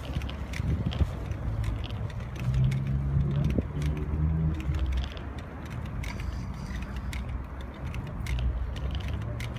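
Plastic wheels of a child's three-wheeled kick scooter rolling over rough asphalt, rattling and ticking, with a low hum that is loudest a few seconds in.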